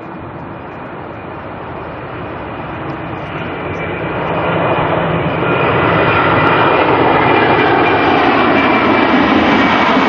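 Jet airliner's engines growing louder as the aircraft approaches, then loud and steady from about halfway in, with a faint high whine over the engine noise.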